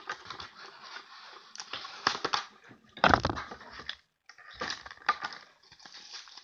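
Crinkling and rustling of plastic packaging with small clicks of handling as paintbrushes are unwrapped, and one loud thump about three seconds in.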